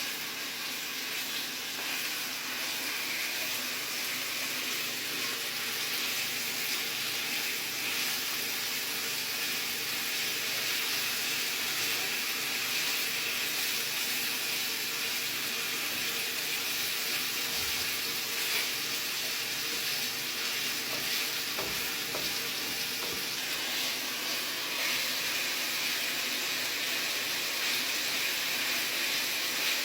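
Bacon frying with ham, onion and garlic in a pan: a steady sizzle, with a couple of faint knocks.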